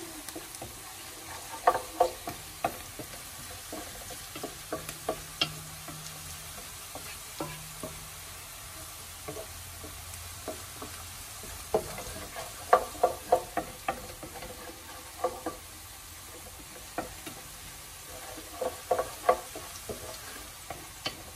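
Diced onions sizzling in oil in an aluminium pressure cooker, stirred with a wooden spoon that knocks and scrapes against the pot in bunches of short clicks over a steady frying hiss.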